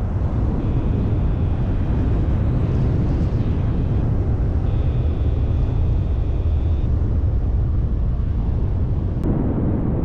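Wind rushing over the microphone during a paraglider flight: a loud, steady low rumble of buffeting. A faint steady high tone sounds twice over it, for about three seconds and then for about two.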